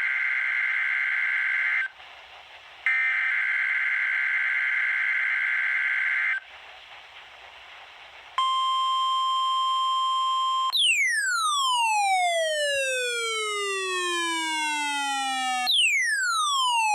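NOAA Weather Radio weekly test signal: two bursts of the Emergency Alert System's warbling digital header data, then a steady 1050 Hz warning alarm tone for about two seconds, then a tone that slides down in pitch, twice.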